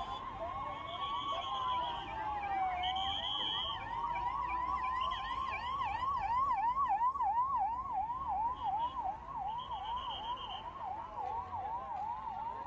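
Emergency vehicle sirens. One wails in a slow rise and fall while another yelps in fast sweeps, about three a second, with short high beeps in between.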